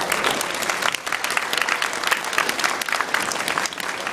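Audience applauding: many hands clapping in a dense, steady patter at the end of a song.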